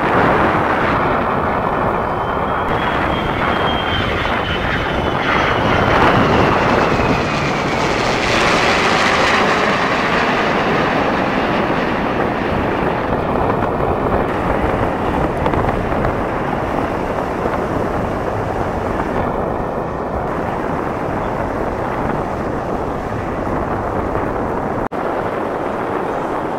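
Two F-22 Raptors' F119 turbofan engines and a propeller warbird flying past in formation: a steady jet roar that swells about a third of the way through and then slowly eases. A thin whine drops in pitch as the formation passes.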